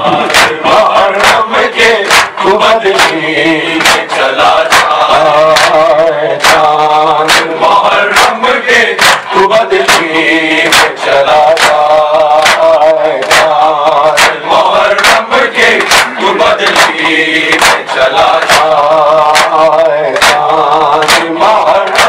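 Male mourners chanting an Urdu noha in unison, with the rhythmic slaps of matam, hands beating on chests, about two strikes a second.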